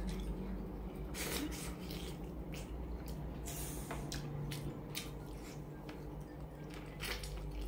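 Close-up wet eating sounds: chewing and sucking meat off a beef rib bone, with a string of short sharp mouth smacks and clicks and a few longer wet sucking noises.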